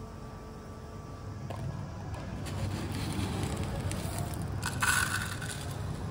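Coarse Himalayan rock salt grains scraped up with a wooden spoon, then poured into a small plastic cup. It is a gritty rustle that builds and peaks in a loud rattle of grains about five seconds in.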